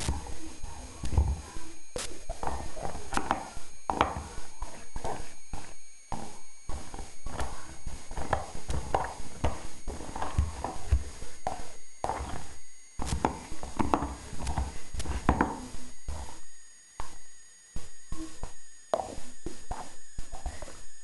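Bull terrier gnawing a bone, with irregular sharp crunches and clicks of teeth on bone, briefly pausing about three-quarters of the way through.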